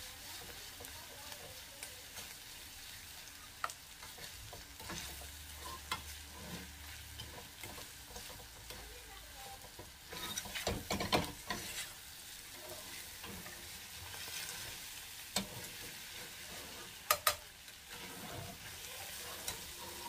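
Ground beef frying with a steady sizzle in a stainless steel skillet while a metal slotted spatula stirs it, scraping and clicking against the pan. The scraping is busiest about halfway through, with a few sharp taps of the spatula later on.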